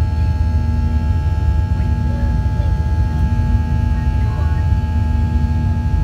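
Cabin noise of a Boeing 737-700 climbing out after takeoff: its CFM56-7B turbofans at climb thrust give a steady deep rumble with a few steady whining tones above it.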